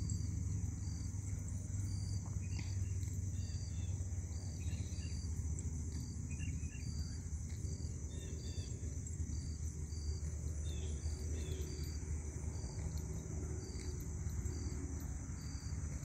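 Steady evening insect chorus of crickets: a continuous high trill with a shorter chirp repeating regularly about once a second, over a steady low rumble.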